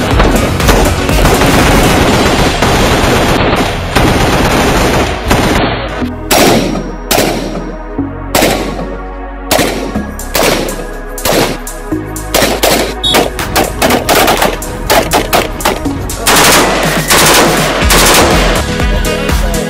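Assault rifles firing, FN SCAR rifles and then a Heckler & Koch G3 near the end. A dense run of rapid shots comes first, then single shots spaced out, then quicker strings of shots.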